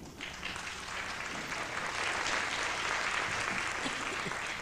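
Audience applauding, starting suddenly and swelling over the first couple of seconds, then holding steady.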